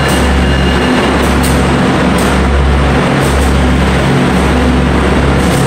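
NYC Subway R156 diesel locomotives passing close by in an underground station: a loud, steady diesel engine drone under dense rumbling noise, with irregular sharp clicks.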